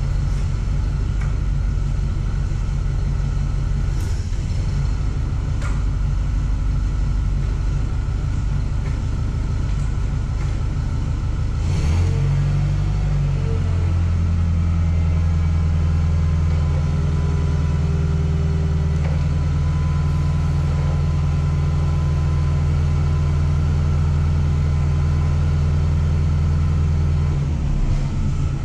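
Allis Chalmers C50 forklift engine running steadily while the forks are raised and lowered. About twelve seconds in, the engine picks up speed and holds there until near the end, then drops back. A few light knocks come in the first twelve seconds.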